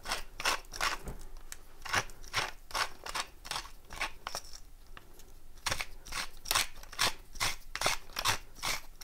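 Coarse salt crumbled between fingertips and sprinkled into a stew pot: a run of crisp crunches, about three a second, with a short lull about halfway.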